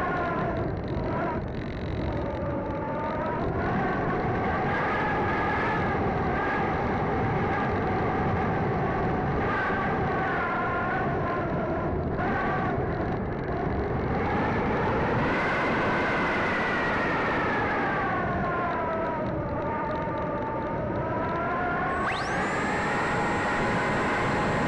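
Electric motor and propeller of a Sky Surfer RC glider whining, the pitch rising and falling slowly several times, over steady wind rush on the onboard microphone. A steady high whistle joins near the end.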